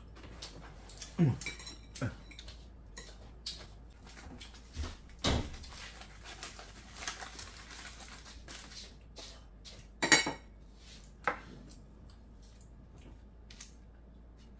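Chopsticks, a spoon and dishes clinking and knocking on a table during a meal, in scattered separate strikes, the loudest about a second in and about ten seconds in. Aluminium foil crinkles softly as food wrapped in it is picked at.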